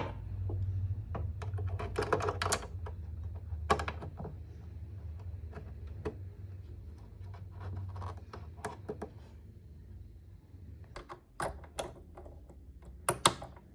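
Sewing machine parts being handled and fitted back together: irregular light clicks and clacks, in clusters a couple of seconds in and again near the end, over a low steady hum.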